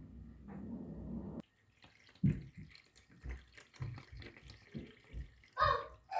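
Water dripping and splashing, a string of short, irregular drips and small knocks.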